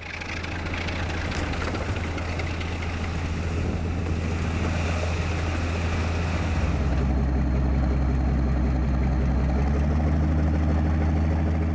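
Diesel engine of a railway rotary snowplow running steadily, with a rushing noise of thrown snow over it. About seven seconds in the engine hum shifts lower.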